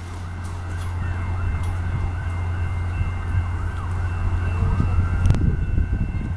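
Distant emergency-vehicle siren wailing, its pitch rising and falling over and over, above a steady low rumble.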